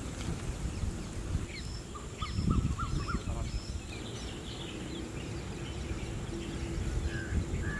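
Outdoor ambience of several birds calling and chirping, with a quick run of rising chirps a couple of seconds in, over a constant low rumble and a thin steady high tone.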